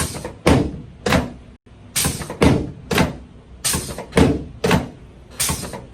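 Chiropractic adjustment of the sacroiliac (SI) joints on a treatment table: a rapid series of about ten sharp thuds, roughly two a second.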